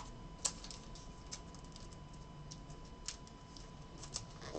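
Faint, scattered light clicks and ticks of trading cards and plastic card sleeves being handled, the sharpest about half a second in.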